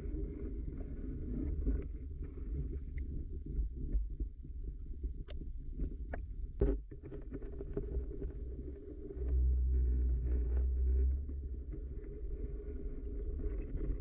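Muffled underwater sound picked up by a camera in a waterproof housing: a steady low rumble of moving water, swelling louder for a couple of seconds past the middle, with a few sharp clicks between about five and seven seconds in.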